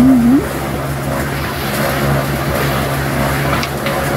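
Steady low mechanical hum, like a motor running, with two light ticks near the end.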